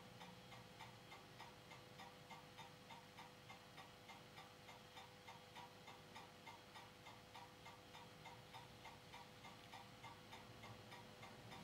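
Ania 5 filmstrip projector running faintly: a steady hum with an even ticking about three times a second.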